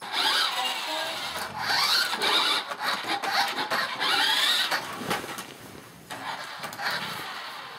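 Toy remote-control car's electric motor whining as it drives, its pitch rising and falling over several short runs. It eases off after about five seconds.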